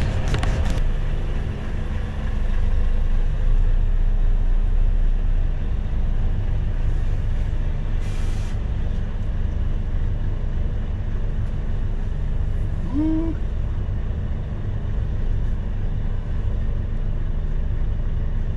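Truck diesel engine running steadily, heard from inside the cab as a low drone. A short hiss comes about eight seconds in, and a brief rising squeak near thirteen seconds.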